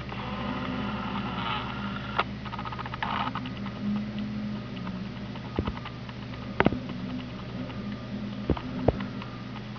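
A stuck car's engine running steadily, with two bursts of scratchy scraping early on and a few sharp knocks later.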